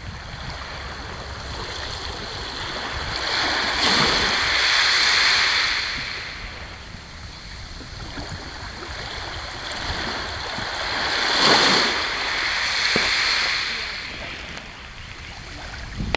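Small waves washing onto the shore, swelling up and dying away twice, with wind rumbling on the microphone.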